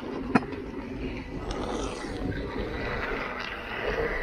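Electric unicycle rolling along wet pavement: the steady rolling noise of its brand-new knobby tyre, with one sharp click about half a second in.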